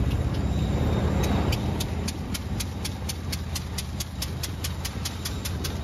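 1903 George Richards veteran car's engine running steadily as the car drives along, heard from aboard. From a little past a second in, a regular ticking comes in at about three to four a second.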